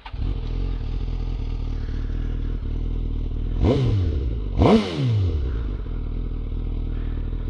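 Motorcycle engine idling steadily, blipped twice about a second apart a little past halfway. Each blip rises quickly in pitch and falls back to idle.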